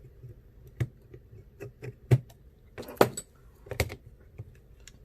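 Scattered small clicks and taps of tools and parts being handled on an iPhone XR during reassembly, the loudest few between about two and four seconds in.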